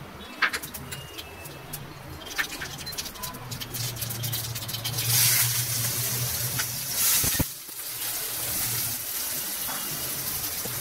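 Food cooking in a hot pan: a steady sizzling hiss with scattered clicks, swelling into a louder gushing rush for a couple of seconds about midway that stops abruptly.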